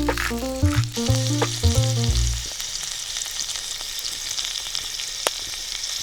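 Food sizzling as it fries, a steady crackling hiss with one sharp click about five seconds in. Background music with bass notes plays over it and stops about two and a half seconds in.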